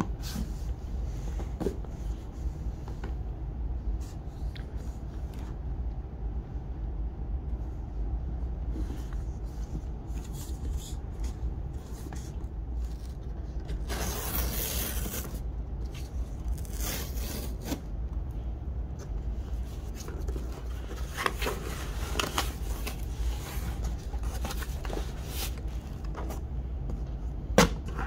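Cardboard shipping box being handled and opened: fingers rubbing and scraping on the cardboard, a tear strip ripped along the box about halfway through, then more scraping as the flaps are folded back. A steady low hum runs underneath.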